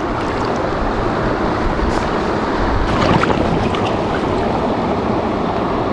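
Small brook running over shallow riffles: a steady rush of flowing water.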